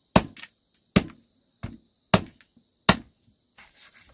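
A large knife chopping raw chicken on a wooden block: five sharp chops, about one every three-quarters of a second, then only faint handling sounds near the end.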